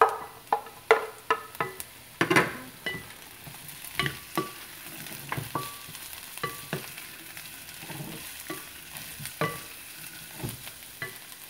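Sliced red bell pepper and onion frying in a pan, stirred with a wooden spatula: irregular knocks and scrapes of the spatula against the pan over a faint, steady sizzle.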